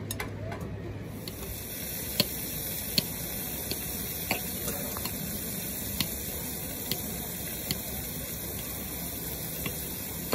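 Knife slicing roasted red peppers and zucchini on a cutting board: a sharp knock from the blade striking the board about once a second. Behind it runs a steady high hiss of food sizzling in a pan.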